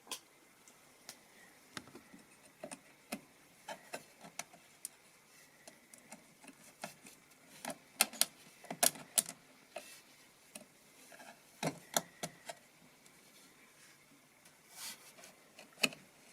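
Irregular small clicks and taps of computer hardware being handled during an M.2 SSD install, loudest in a cluster about eight to nine seconds in and again around twelve seconds.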